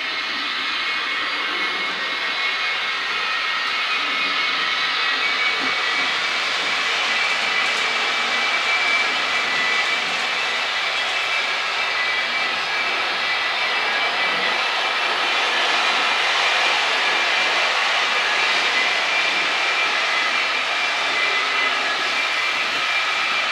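TT-scale model train running on the layout: a steady electric-motor whine over the rolling noise of its wheels on the track, slowly growing louder as it approaches.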